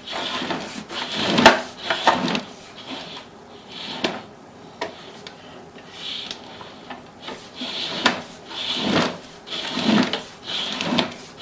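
Sewer inspection camera's push cable being fed down a sewer line, with irregular rubbing and scraping and a few sharp clicks as the cable and camera head work past root intrusions.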